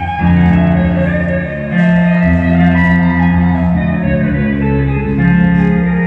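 Band sound check: electric bass guitar holding low notes under sustained guitar chords, the notes changing every second or two.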